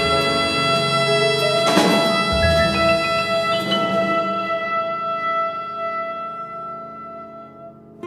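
Instrumental background music ending on a long held chord that slowly fades out.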